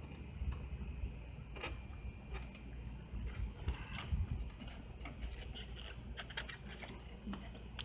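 Ratchet with a 3/8 hex bit clicking in short irregular runs while unscrewing the bolts of a turbo diverter valve.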